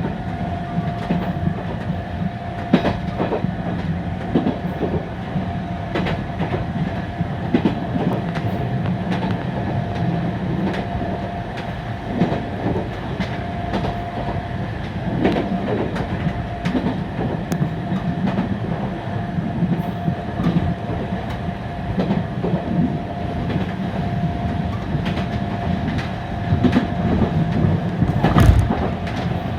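Fukui Railway 770-type tram running, heard from inside the car. There is a continuous rumble, a steady hum, and wheels clicking and knocking over rail joints, with a heavier knock near the end.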